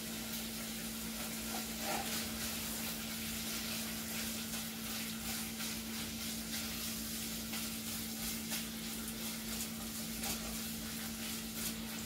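Cubed beef sizzling and crackling as it browns in melted butter in a pot over medium-high heat, with a spatula stirring through it. This is the searing stage, before any liquid goes in.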